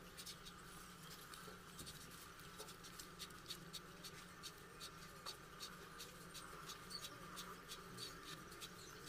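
Ballpoint pen drawn along a plastic ruler on notebook paper, ruling lines: faint scratching with many small irregular ticks.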